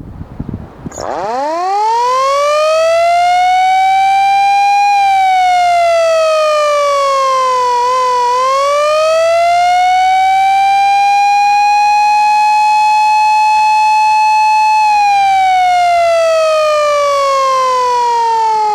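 Vintage CAM mechanical fire-truck siren wailing loudly. It winds up from a start about a second in, rises, sags once, and climbs back to a steady top pitch. In the last few seconds it winds down, the pitch falling as the rotor slows.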